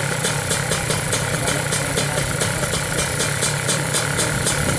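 Suzuki Satria 125cc two-stroke engine, tuned for drag racing and fitted with a YY Pang racing exhaust, idling steadily on the stand, with a sharp regular ticking about seven times a second.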